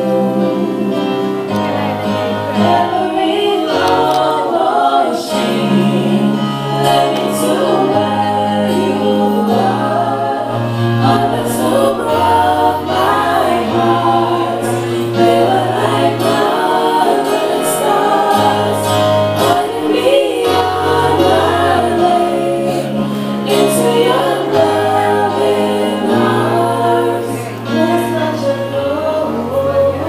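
Music: a choir singing over instrumental accompaniment with a sustained bass line that steps from note to note.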